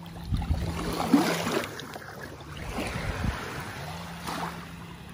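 Wind and surf noise on a phone microphone, with irregular low handling bumps and a faint steady low hum that drops out for about two seconds midway.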